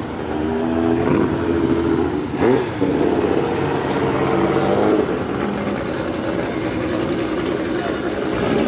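Old car engines running close by, their pitch shifting in steps, with one brief rev about two and a half seconds in.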